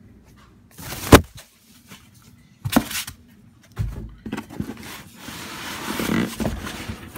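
Cardboard shipping box and styrofoam packing being handled: a sharp knock about a second in, two more knocks a couple of seconds later, then a few seconds of cardboard and styrofoam rubbing and rustling.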